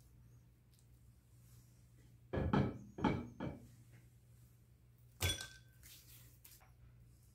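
Soft handling knocks and thumps while making nigiri sushi by hand: three dull knocks close together, then about two seconds later a single sharp clink that rings briefly, like ceramic or ice tapping a dish.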